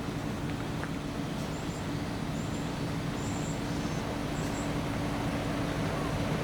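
A motor running steadily with a constant hum, growing slightly louder.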